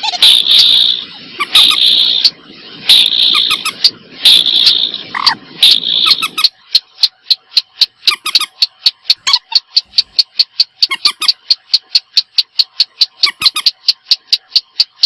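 Recorded calls of the common moorhen and the sintar sawah rail: first a string of harsh calls repeating about every second and a half over a rough low rasp, then, from about six seconds in, a fast, even run of sharp clicking notes, about five a second.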